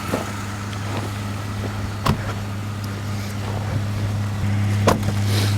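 Vehicle engine idling steadily nearby, a low even hum over wind-like noise, with two sharp clicks or knocks about two and five seconds in.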